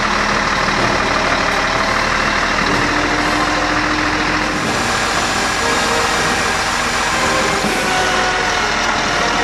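Diesel engine of a Scania tree-spade truck running steadily.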